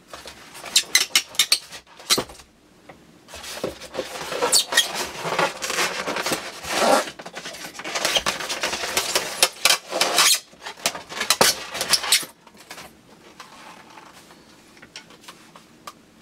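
Rustling and rapid sharp plastic clicks and clacks as a plastic airsoft shotgun is unwrapped and handled. The sounds come thick and loud for about twelve seconds, then drop to faint handling.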